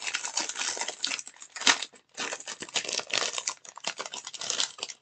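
Packaging crinkling and rustling as it is handled and unwrapped: a dense run of crackles with a brief pause about two seconds in.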